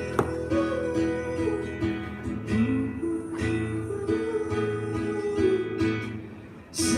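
Background music: an acoustic guitar strummed and picked in an instrumental passage of a pop song, with no singing. It briefly drops in loudness near the end.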